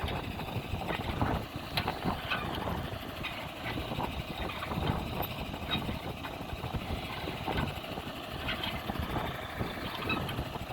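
Heavy truck carrying a road roller, its engine running steadily with road noise and scattered small rattles.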